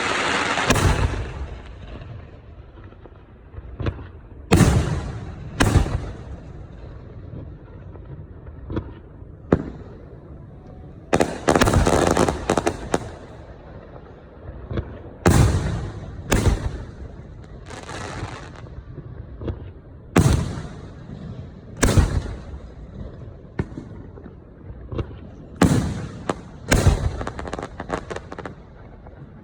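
Professional 1.3G aerial fireworks going off in a steady sequence, a sharp boom every second or two. There are longer crackling stretches at the start and about twelve seconds in.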